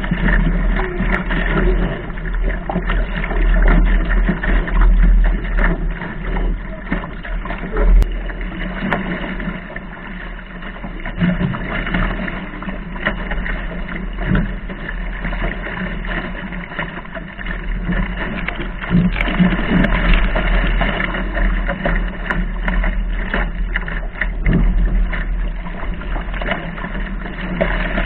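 Wind buffeting a deck-mounted camera's microphone as a Laser sailing dinghy planes through chop, with water rushing and splashing along the hull. A low rumble that swells and fades with the gusts.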